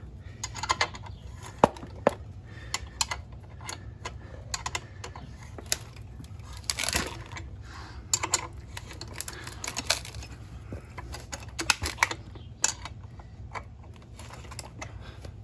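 Hand wrench working the front bar bolt on a mini trencher: irregular metallic clicks and clinks of the tool on the bolt and frame while the bolt is tightened to take up slack in the digging chain.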